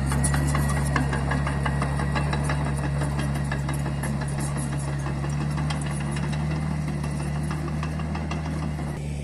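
Mini bulldozer's diesel engine running steadily, with a rapid ticking clatter over it. The clatter dies away near the end.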